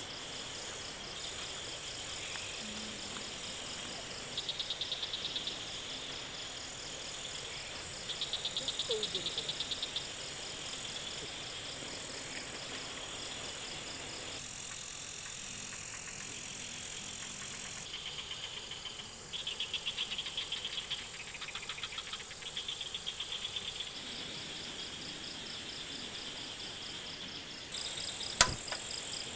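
Chorus of forest insects: a steady high-pitched buzz and chirring, with trains of rapidly pulsing calls starting and stopping several times. A single sharp click near the end.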